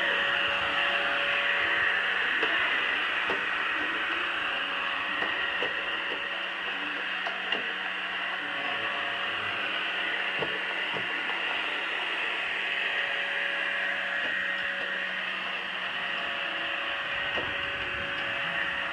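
PureClean robot vacuum running across carpet: a steady whirring hiss from its fan and brushes with a steady hum under it, and a few light clicks along the way.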